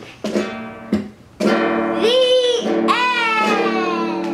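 Chords strummed on a guitar, one strum about a quarter-second in and another about a second and a half in, each left to ring. High sliding tones rise and fall over the ringing chords in the second half.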